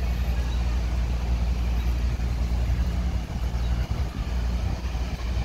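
Fountain water jets spraying: a steady rushing noise with a heavy low rumble.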